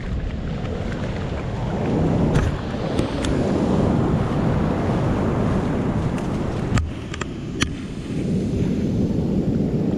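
Ocean surf washing in and out with wind buffeting the microphone, the rush swelling twice. A few light sharp clicks sound over it.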